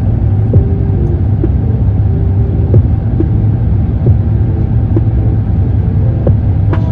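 Steady, loud low rumble of a vehicle in motion, with a few faint short tones and light clicks over it.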